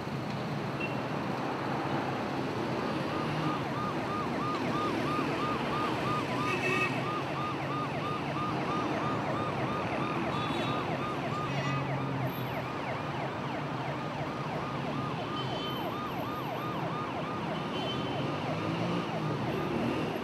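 An emergency-vehicle siren warbling quickly and evenly, about two rises and falls a second, over steady street traffic noise. The siren starts about three seconds in.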